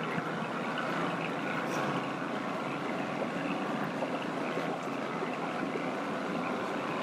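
Motorboat engine running steadily as the boat moves across the lake, an even drone with water and wind noise mixed in.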